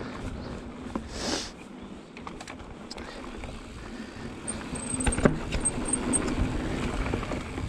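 Mountain bike riding fast down a dirt singletrack: steady tyre, wind and frame-rattle noise that grows louder through the second half. There is a brief rush of noise about a second in and a sharp knock a little past five seconds.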